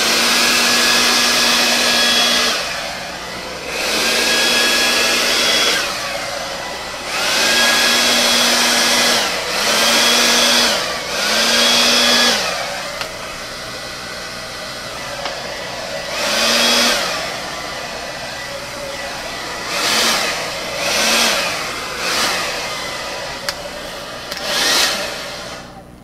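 Revlon hair dryer with a small nozzle blowing in a series of bursts, a steady rush of air with a motor whine that rises as each burst starts and falls away as it ends. The bursts are longer at first and shorter and quicker near the end.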